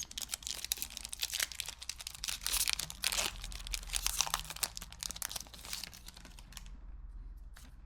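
Foil wrapper of a Pokémon booster pack being torn open and crinkled, a dense crackling that stops about six and a half seconds in.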